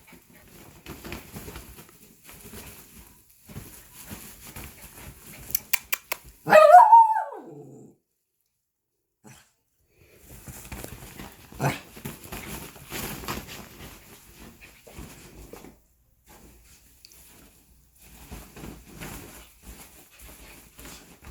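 A dog tussling with a cat: scuffling noises in stretches, a quick run of clicks, then one loud bark about six and a half seconds in that drops in pitch.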